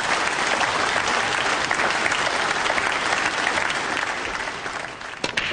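Audience applauding, a steady dense clapping that fades towards the end.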